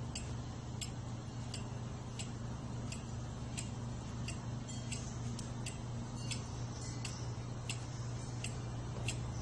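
Regular mechanical ticking, about two clicks a second, over a steady low hum.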